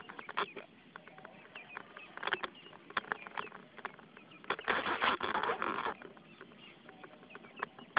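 Irregular light taps and patter, with a louder burst of rubbing noise lasting about a second just past the middle: fingers handling the phone over its microphone.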